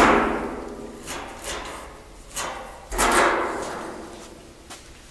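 Knocks on the top of a rusty steel drum as a chalk and a metal triangle square are set down and shifted on it: a loud knock right at the start and another about three seconds in, each ringing out and fading, with a few lighter taps between.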